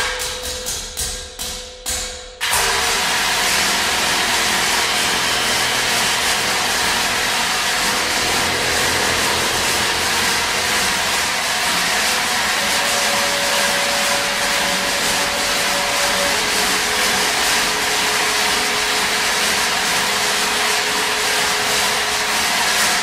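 Contemporary chamber music for voice, bassoon, accordion and percussion. For about the first two seconds there is a run of sharp struck attacks over a held tone. Then it switches suddenly to a dense, steady rushing, rubbing noise, with a held pitch rising out of it in the middle and a lower one after.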